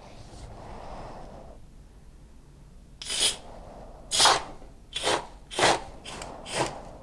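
Froth-Pak two-component spray foam gun triggered in six short hissing bursts into a bag-lined garbage can, a test spray to check the foam is coming out mixed before going onto the wall.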